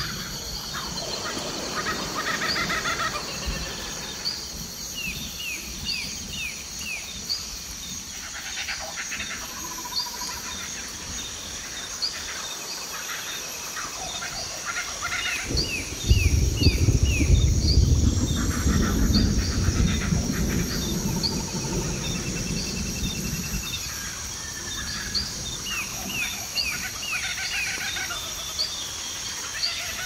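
Tropical rainforest ambience: a steady high insect drone with many birds chirping and calling in short repeated notes. About sixteen seconds in, a deep rumble of thunder starts suddenly, the loudest sound here, and fades out over about seven seconds.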